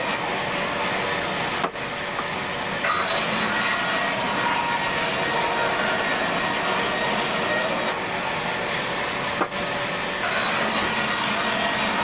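Large vertical band saw running steadily as its blade rips a thick wooden plank lengthwise. The level dips for an instant twice.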